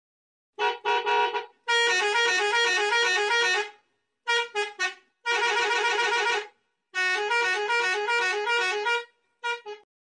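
Truck air horn honking in bursts: a few short honks, then longer runs that flip rapidly between two pitches, repeated several times with brief pauses between.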